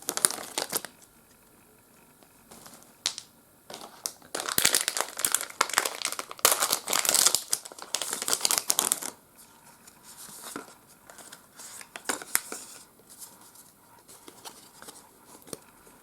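Foil booster-pack wrapper being torn open and crinkled by hand, with the loudest stretch of tearing and rustling in the middle, then lighter rustles as the cards are pulled out.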